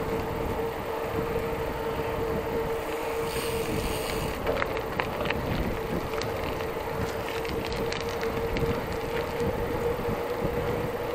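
Riding a mountain bike: wind on the microphone and tyre noise, with a steady hum throughout and light rattling clicks in the middle.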